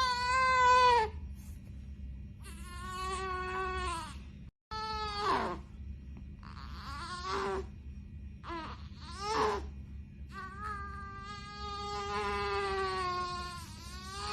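Newborn baby crying in a string of about six wails, the last one long and drawn out.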